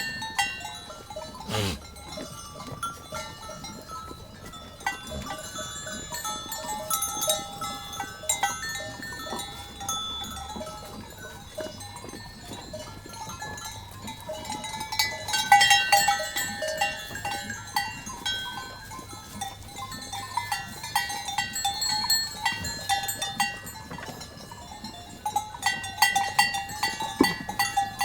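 Bells hung on a flock of grazing sheep clanking and jangling irregularly, with many bells ringing at once, busiest about halfway through and again near the end. A sheep bleats now and then.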